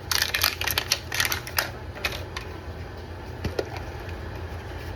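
Hands opening a plastic toy surprise ball: rapid crinkling and clicking of plastic for about the first two seconds, then a few single clicks.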